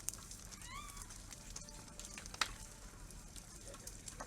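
Campfire crackling, with sharp wood pops near the start and again about halfway through. A short call that rises in pitch cuts through in the background just under a second in.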